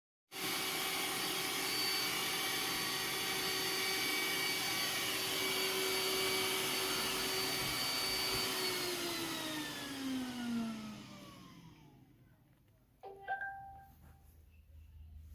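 Robot vacuum's motor whirring steadily, then winding down with a falling pitch until it stops. A short electronic beep follows near the end.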